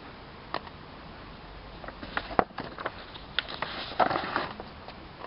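Handling noise from old paper magazines: a few sharp clicks and, about four seconds in, a brief rustle of paper as they are moved and leafed through.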